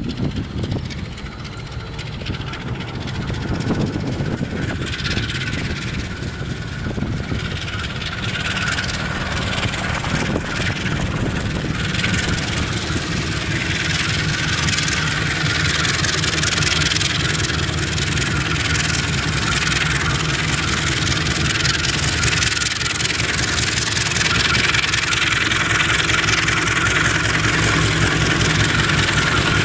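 Diesel locomotives at the head of a train approaching, their engines running with a low rumble that grows steadily louder as they draw near.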